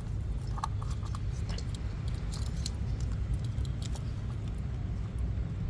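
Light scattered clicks and taps of tools and engine-bay parts being handled during reassembly after a spark plug change, over a steady low hum.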